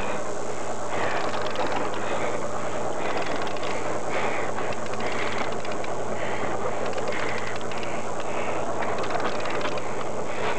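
Fishing boat's engine running with a steady low hum, under rapid ratcheting clicks of a fishing reel as line is wound in on a hooked fish.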